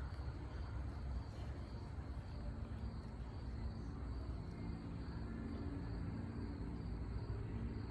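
Insects singing steadily in an even, high-pitched drone, over a low rumble of wind or microphone handling.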